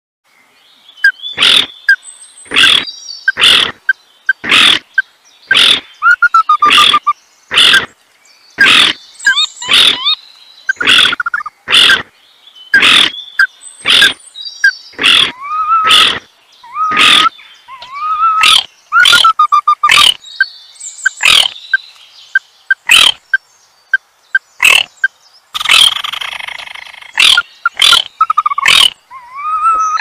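Wetland animal calls: loud, sharp calls repeating about once or twice a second, with higher call notes gliding up and down between them.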